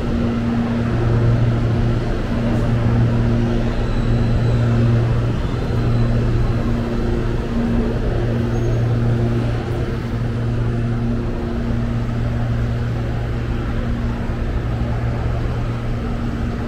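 Steady low electric hum of a CPTM electric commuter train standing at the platform with its doors open, heard over the wide noise of the station.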